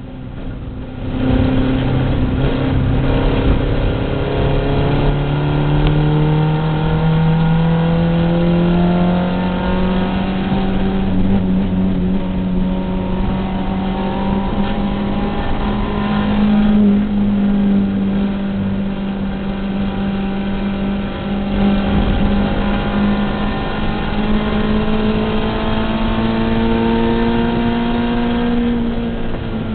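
Volkswagen race car's engine heard from inside the cabin under hard acceleration: the note jumps up about a second in as the throttle opens, climbs slowly, then holds high and steady at speed, dropping away right at the end.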